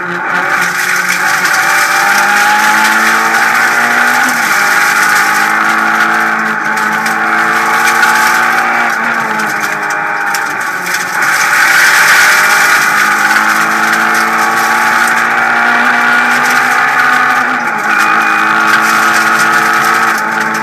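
Renault Clio Ragnotti rally car's four-cylinder engine heard from inside the cabin, pulling hard at high revs at stage speed. Its note climbs steadily and falls back sharply about four seconds in, again around ten seconds and near the end.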